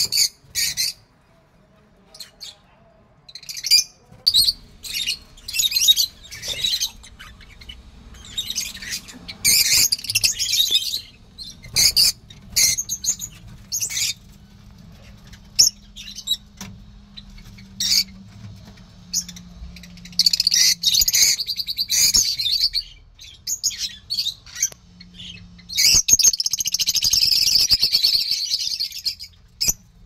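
Peach-faced lovebirds chattering in shrill, high chirps that come in scattered bursts, with longer, denser bouts of chatter about a third of the way in, two-thirds of the way in and near the end.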